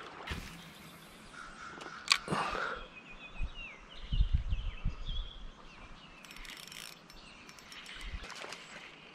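Outdoor ambience with a few short bird chirps. A sharp click comes about two seconds in, and a run of low thumps follows around four to five seconds in.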